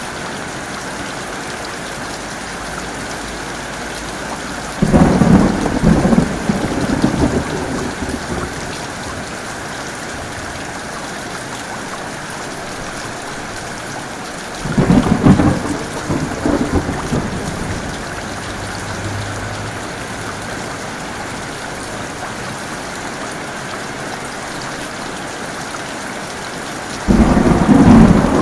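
Heavy rain pouring steadily, with three claps of thunder that break in suddenly and rumble for a few seconds each: about five seconds in, about fifteen seconds in, and near the end.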